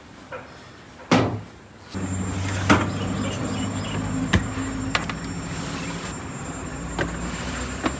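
Stainless-steel lid of a food warmer banging shut about a second in, with a brief ring. Then a steady low machine hum with several sharp metal clinks of a spatula against the baking trays.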